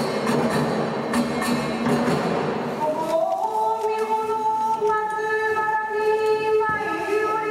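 Nanbu kagura accompaniment: chanted singing over a quick, regular beat of small hand cymbals. About three seconds in the chanting gives way to a high, held melody that slides up into its first note.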